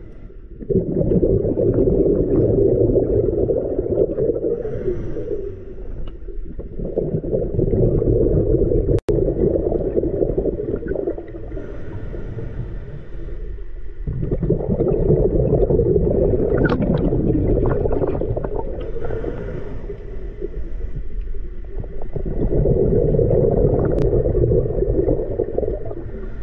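Scuba regulator breathing heard underwater. Four long bubbling rushes of exhaled air, each lasting several seconds, alternate with quieter stretches between breaths.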